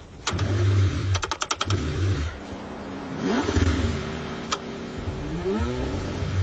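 Cold car engine cranking and struggling to start, with its pitch sweeping upward in surges twice. A quick run of sharp clicks comes about a second in.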